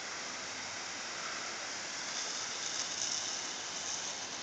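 Garden hose spraying a jet of water onto a lawn: a steady hiss that grows a little louder and brighter about two seconds in.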